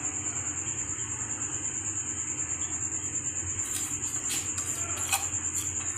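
A cricket trilling steadily in a high, fast, even pulse, with a few short clicks in the second half, the sharpest about five seconds in.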